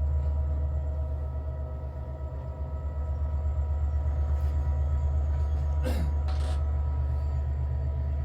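Steady low rumble of a train in motion, with a fast pulsing beat and a constant hum. A brief rush of noise with a falling sweep about six seconds in.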